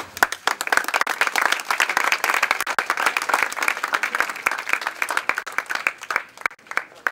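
A crowd applauding: many hands clapping densely, thinning out about six seconds in and dying away near the end.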